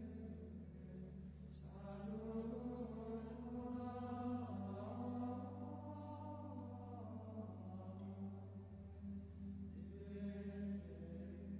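Slow, quiet sacred music: sustained low chords that change about every four to five seconds, with chant-like singing above them.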